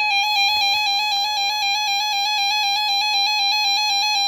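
Radio Shack 12-262 weather alert radio sounding its alert siren on test: a loud, steady, high electronic tone that warbles rapidly and evenly throughout.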